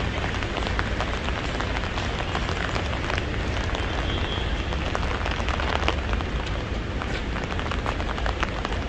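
Heavy rain falling steadily, with many sharp, close drop impacts ticking through it.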